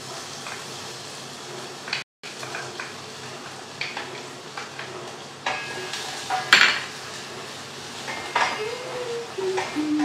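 Wooden spatula stirring in a stainless steel saucepan over a gas flame, with a steady sizzle and scattered clinks of utensils against pots and bowls. One clink about six and a half seconds in is louder than the rest, and the sound drops out completely for a moment about two seconds in.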